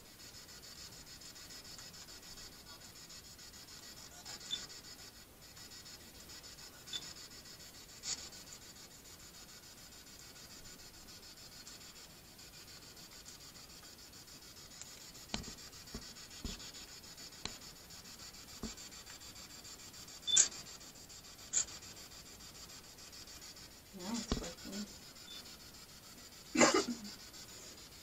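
Quiet room tone with a steady faint hiss, broken by scattered soft rubbing and handling rustles and small clicks, with a few louder rustles or knocks around twenty seconds in and again near the end.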